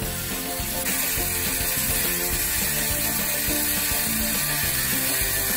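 Wind-up clockwork mechanism of a Roto-Q 360 non-electric rotisserie running, a steady ratcheting whir as it slowly turns the cage, growing louder about a second in. Background music plays under it.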